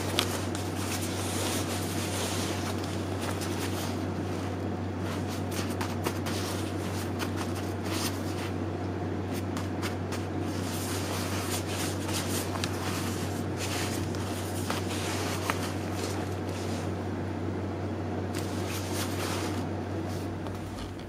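Nylon shell of a down jacket rustling and crinkling in irregular bursts as it is handled, over a steady low hum.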